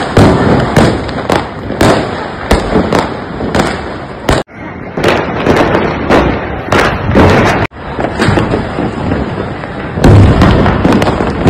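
Firecrackers and fireworks going off in rapid, overlapping bangs and pops, with two abrupt breaks in the sound partway through.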